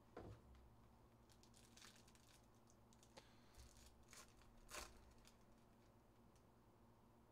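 Faint crinkling and tearing of a foil trading-card pack wrapper being handled and opened. There is a soft knock about a quarter second in, and scattered crackles with the sharpest near five seconds in.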